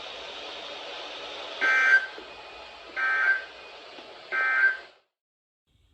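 Three short bursts of Emergency Alert System end-of-message data tones (SAME digital code), a little over a second apart, over a steady background hiss that cuts off near the end. The bursts signal the end of the alert message.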